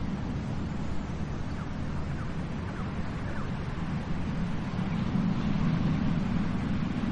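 Ocean surf washing onto a beach: a steady low rumble of waves that swells a little louder about two-thirds of the way through.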